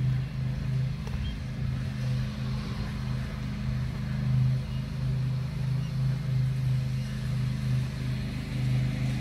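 A steady low mechanical hum, like a motor running, that keeps wavering in strength.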